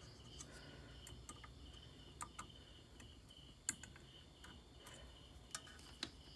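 Near silence with a handful of faint, sharp clicks as multimeter probe tips are pressed against an inverter's MOSFET heatsinks and circuit board. A faint, steady, high chirping pulses about four times a second in the background.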